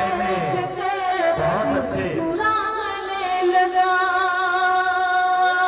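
A woman sings a line of Urdu poetry in tarannum, the sung style of mushaira recitation, into a microphone. The phrase ends in one long, steady held note through the second half.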